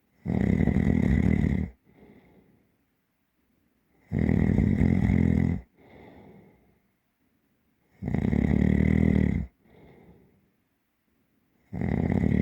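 Deep, heavy snoring: a loud snore about every four seconds, each lasting a second and a half and followed by a short, much softer breath. The fourth snore begins near the end.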